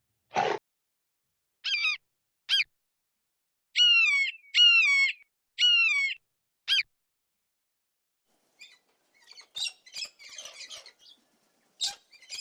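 Bird calls: a brief noisy burst at the start, then a few short calls and three longer, slightly falling calls about four to six seconds in, followed near the end by a flurry of quicker, busier calls.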